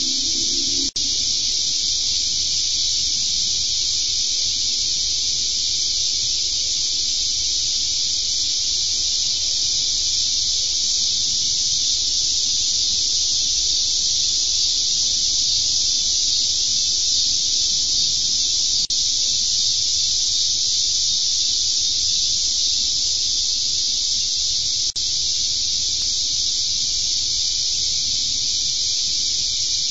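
Steady, high-pitched chorus of evening insects such as crickets or katydids, unbroken apart from a few very brief dropouts in the stream's audio.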